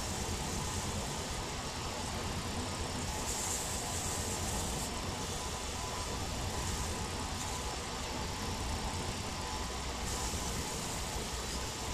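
Midi wood lathe running steadily with a low hum, with stretches of higher hiss about three seconds in and again near the end.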